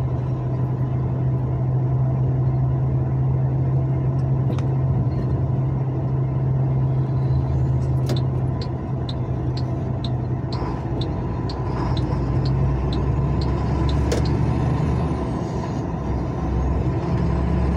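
Engine and road noise of a vehicle driving in highway traffic: a steady low hum. For several seconds in the middle come light, quick ticks, about two and a half a second.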